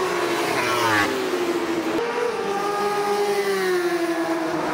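Racing motorcycles at high revs going past on track, the engine note dropping sharply in pitch as one passes just before a second in. After a cut about two seconds in, another long, high engine note slowly falls in pitch.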